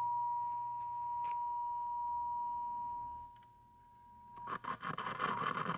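A 1960s General Electric C-510a tube clock radio's speaker plays a steady high test tone picked up from a signal generator. The tone fades out past the middle. About a second later it breaks into irregular crackling static as the chassis parts are handled, which points to crusty tube sockets.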